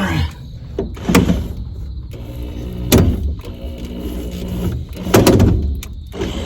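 Knocks and thumps of a fibreboard headliner panel being pushed up and snapped into place against a truck cab roof: a knock about a second in, another at about three seconds and a quick double knock just after five seconds, with rustling between.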